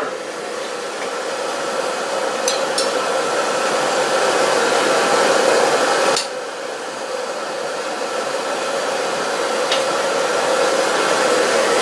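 Steady rushing, bubbling hiss of the water tank at the boil in a rust-bluing setup, with the shotgun part just dropped back in. The noise swells slowly, drops suddenly about six seconds in, and builds again. A few light metal clinks come from the tank.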